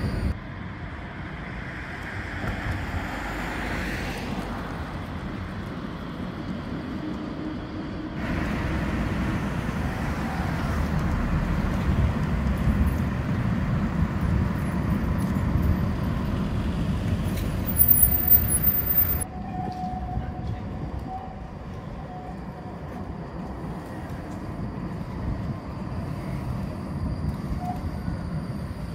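Low-floor trams running on street track, mixed with passing car traffic. The sound changes abruptly a few times as one take gives way to the next, and there is a brief high squeal about 18 seconds in.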